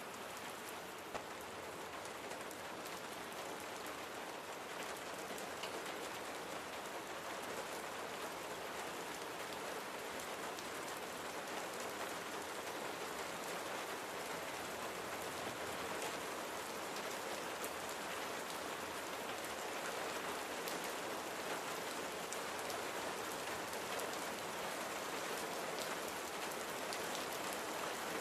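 Steady rain falling on a surface, an even hiss with scattered individual drops, slowly growing a little louder, with one sharper drop tick about a second in.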